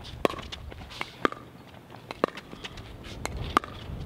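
Pickleball paddles striking the hard plastic ball in a doubles rally: a sharp, hollow pock about once a second, each with a brief ring.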